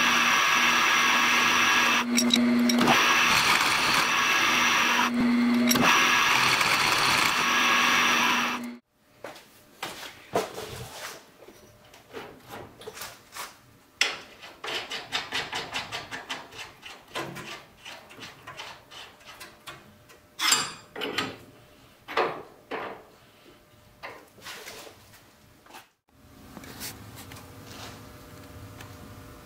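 A milling machine runs with its end mill cutting a small metal hex flange nut on a rotary table: a loud, steady machining sound that dips twice, then stops about nine seconds in. After that come a run of quick light clicks and a few sharper metal knocks as metal parts of the support rod are handled and fitted by hand, with a low steady hum near the end.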